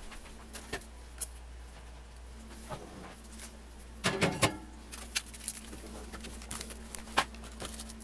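Handling noises of a plastic filament spool being put into an oven: scattered clicks and knocks, with a louder clatter about four seconds in as the spool goes onto the oven's wire rack.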